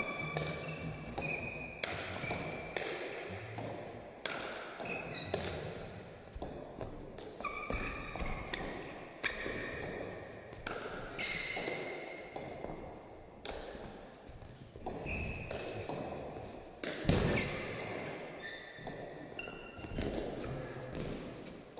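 Table tennis rally: the plastic ball clicking back and forth off the bats and the table in quick succession, each hit ringing briefly in a large hall. One heavier thump stands out about two-thirds of the way through.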